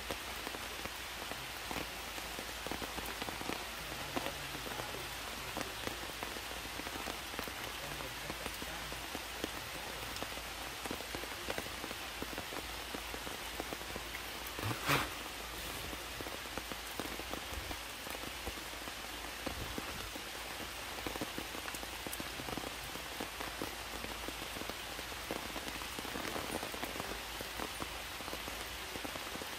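Heavy rain falling steadily, with one sharp knock about halfway through.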